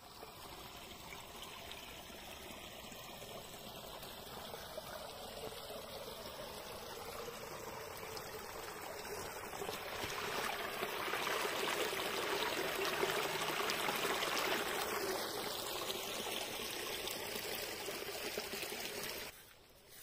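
Small shallow stream running and trickling over rocks, a steady rush of water that grows louder about halfway through and stops abruptly near the end.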